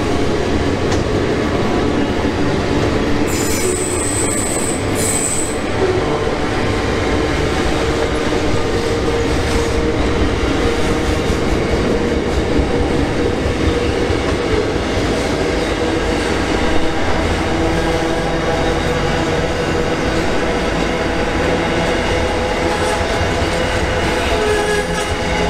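Freight train wagons rolling through a tight curve, their steel wheels squealing against the rails in steady whistling tones over the rumble of the wagons. A sharper, higher squeal comes in twice, about three to five and a half seconds in.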